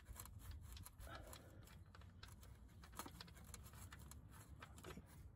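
Very faint clicking and scraping of the hex filler plug being turned out by hand from a BMW E30 manual gearbox casing.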